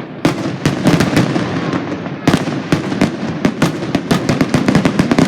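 Fireworks going off in quick, irregular succession: many sharp bangs and crackles over a continuous low rumble.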